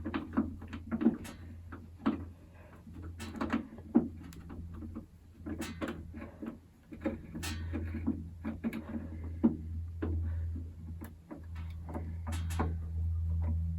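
Screwdriver driving a screw into an iMac G3 during reassembly: a string of small, irregular clicks, taps and scrapes of the tool and screw. A low steady hum runs underneath.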